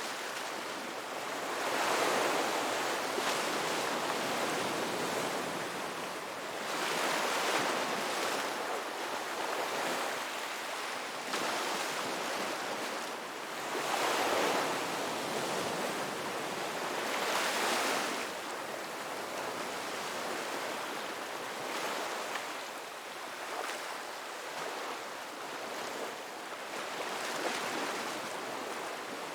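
Ocean waves breaking on a beach, a steady rushing wash that swells into louder surges every few seconds as each wave comes in, settling into a more even wash near the end.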